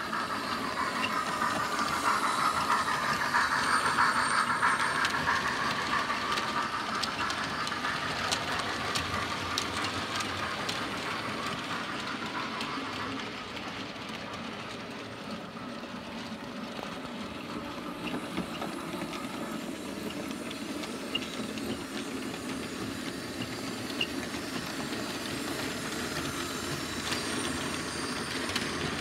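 OO gauge model train running: the model locomotive's motor whine glides in pitch and is loudest in the first few seconds, and the wheels of the passing wagons click along the track.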